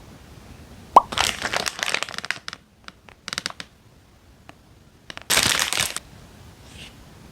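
Plastic food packaging being handled and torn open, crinkling: a sharp snap about a second in, a spell of crinkling, and a louder rip of about half a second near the middle.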